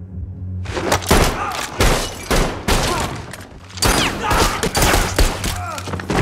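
Movie fight sound effects: a rapid string of gunshots and hard blows in close quarters, starting about a second in and running in clusters almost to the end.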